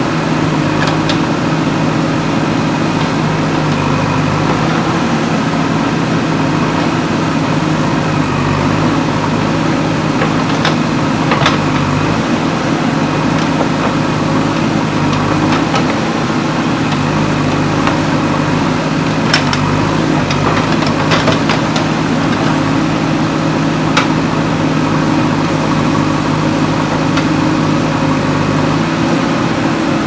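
JCB 3DX backhoe loader's diesel engine running steadily while its backhoe arm digs soil, with a few short sharp knocks, clustered about two-thirds of the way through.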